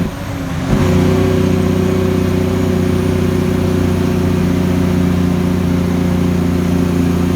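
Diesel engine of a Kenworth T800 truck heard from the cab, running steadily. Its sound dips briefly at the very start and comes back in under a second, as with a gear change.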